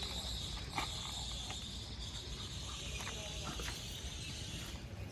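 Insect chirring: a steady, high-pitched drone that fades out near the end, with a few faint clicks.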